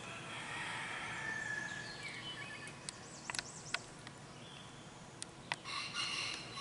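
Domestic chickens calling faintly in the background, with a louder call near the end and a few sharp clicks or taps in between.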